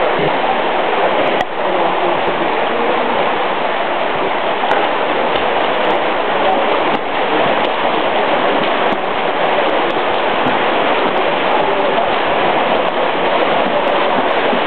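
Steady rushing water noise filling an indoor swimming pool hall.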